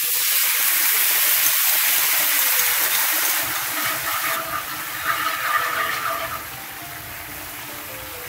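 Sauce of fish sauce, chili sauce, sugar and water hitting hot oil in a frying pan and sizzling with a loud hiss as it boils up. The hiss is loudest over the first few seconds, then dies down as the sauce settles into a bubbling boil.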